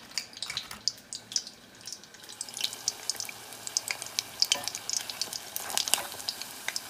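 Battered pieces deep-frying in hot oil in a stainless saucepan: a steady sizzle with many small crackling pops, which grow denser a couple of seconds in.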